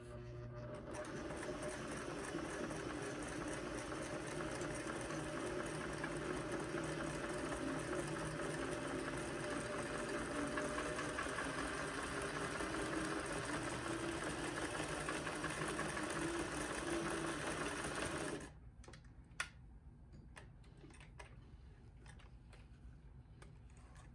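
A 1961 Singer 503A sewing machine running steadily, sewing a straight twin-needle seam, then stopping abruptly about three-quarters of the way through. A few light clicks and one sharp knock follow as the machine is handled.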